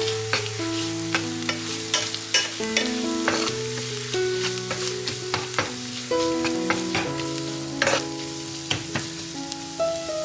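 Food sizzling as it fries in a pan, stirred with a utensil that clicks and knocks against the pan many times, over background music.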